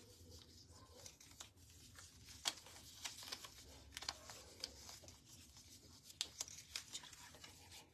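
Faint rustling of a garment's fabric and its hanger being handled, with scattered light clicks and ticks.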